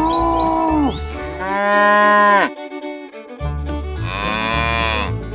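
Cow mooing three times, each long call dropping in pitch at its end, over a background music beat.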